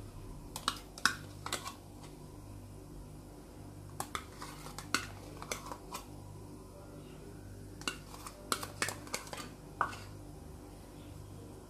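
Metal spoon clinking and tapping against bowls while scooping a creamy sauce into a mini food chopper's plastic bowl. It comes in three bursts of sharp clicks and knocks, over a steady low hum.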